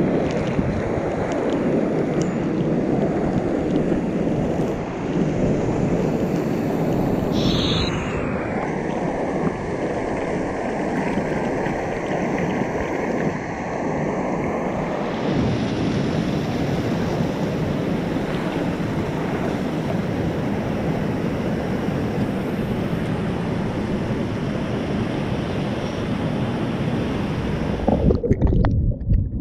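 Whitewater of a waterfall pouring and churning into the pool right around the camera, a loud steady rush. Near the end the camera goes underwater and the sound turns to a muffled low rumble.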